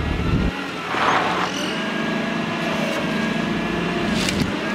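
Komatsu forklift engine running steadily at low speed with a hum. A short rush of noise about a second in and a single sharp knock near the end.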